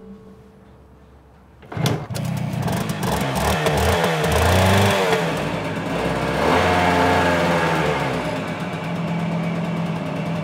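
An old, newly repaired motor vehicle's engine starts about two seconds in and keeps running, rising and falling in pitch as it is revved.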